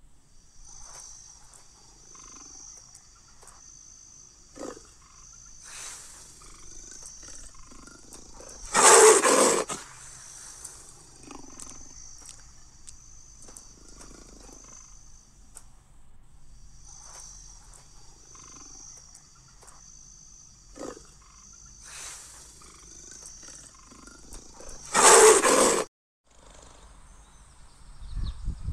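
Leopard roar sound effect from a Google 3D AR animal, heard twice about sixteen seconds apart, each lasting about a second, over a faint, evenly repeating insect chirping. A low rumbling starts near the end.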